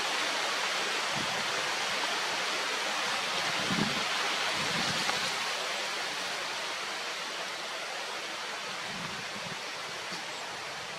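Steady rushing noise with a few soft low thumps, fading slightly toward the end.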